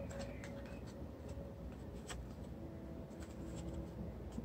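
Faint rustling and light ticks of paper being handled, as the glued flaps of a paper box are folded and pressed together.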